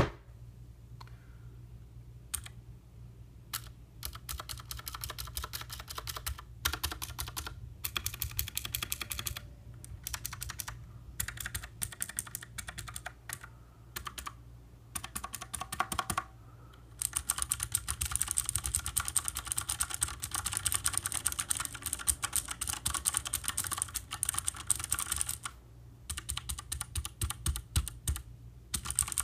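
Typing on a computer keyboard: rapid keystroke clicks in short bursts with pauses, then near-continuous fast typing from about seventeen seconds in.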